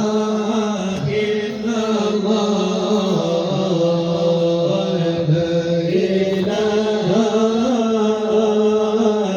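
Islamic devotional chant (madih nabawi): voices holding long notes that shift slowly in pitch over a steady drone, with no clear words.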